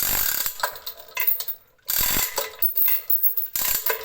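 Hand-operated chain block being hauled on its hand chain in several short pulls, its ratchet pawl clicking rapidly during each pull as it takes up load on the test rig.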